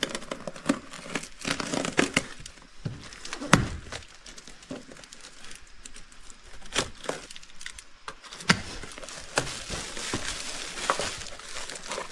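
Snap-off utility knife slitting packing tape on a cardboard box, with tape tearing, scraping and crinkling of the packaging, broken by many sharp clicks and knocks.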